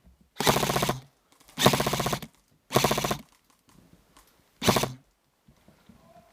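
Airsoft rifle firing on full auto in four short bursts of about half a second each, with the last burst the shortest.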